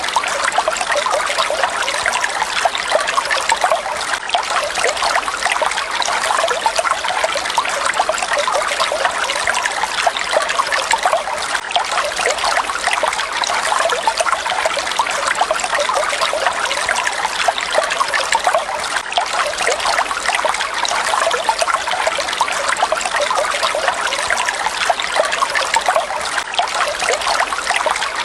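Falling water splashing and trickling steadily, a continuous light splashing hiss with little deep rumble.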